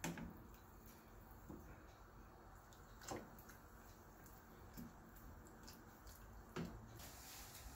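Near silence, with a wooden spatula stirring spinach in a saucepan of hot water and knocking faintly against the pot three times.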